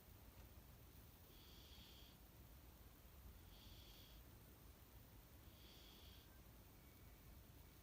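A sleeping house cat snoring faintly: a short breathy snore about every two seconds, three in all.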